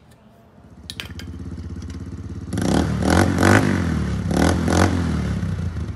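Small ATV engine with its stock exhaust insert still fitted, running low at first, then revving up and down loudly as it rides, from about halfway through. A couple of clicks come about a second in.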